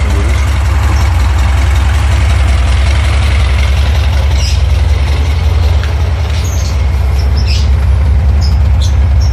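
VW Safari's 1600 cc air-cooled flat-four engine idling steadily while warming up, with an even, rapid low pulse.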